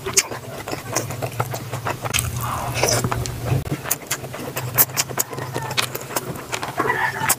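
Close-miked chewing and mouth sounds of someone eating rice and meat, with many short wet clicks and smacks, over a steady low hum.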